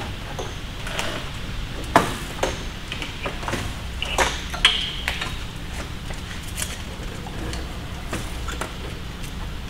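Scattered clicks, knocks and light clinks of hand tools and plastic trim fasteners as a car's rear bumper cover is worked loose, one short ringing clink about four and a half seconds in, over a steady low hum.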